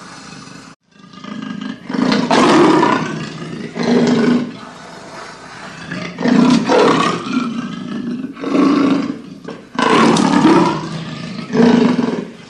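Leopard roaring: a series of about six hoarse, rasping calls, each under a second or so, repeated every one to two seconds.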